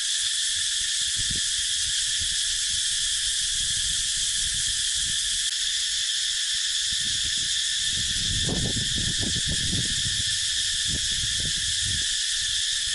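Chorus of cicadas buzzing in a steady, unbroken high drone, with some faint low rumbles underneath about eight to ten seconds in.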